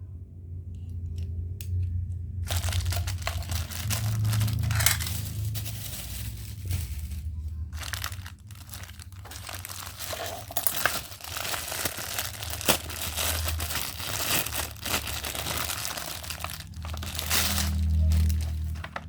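Plastic packaging crinkling and rustling as it is handled and pulled open, starting about two and a half seconds in, with scattered sharp crackles.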